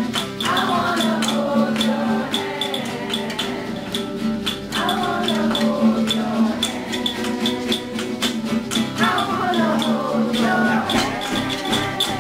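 A group playing live on hand-made percussion instruments, shaken and struck in a steady rhythm, over sustained held notes, with voices singing along.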